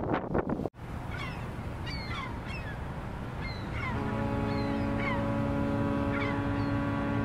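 Wind buffeting the microphone, cut off abruptly within the first second. Then short, falling bird chirps repeat every half second or so, and about halfway through a long, steady, deep horn blast begins and holds.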